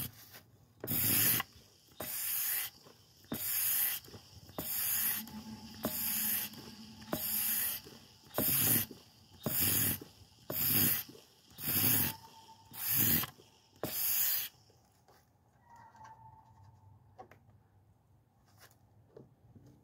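A hand-pumped fluid extractor being worked to draw fuel out of a small-engine tank. There are about a dozen rhythmic rasping strokes, roughly one every second and a quarter, which stop near the end.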